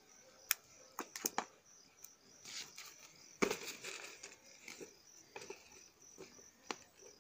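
Thin plastic kite sheet crinkling and rustling as it is handled and taped, with a few short sharp clicks scattered through.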